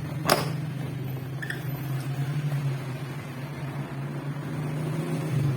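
A steady low mechanical hum with one sharp click about a third of a second in.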